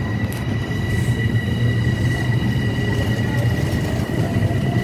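Long Island Rail Road M7 electric train running through the station: a steady low rumble with a high-pitched tone held level over it.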